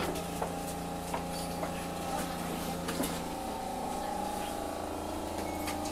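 Hiroshima Electric Railway 800 series tram heard from inside the car: a steady hum with tones from its armature-chopper-controlled traction equipment, with light clicks in the first half. A little over three seconds in the tones change, and a higher whine comes in.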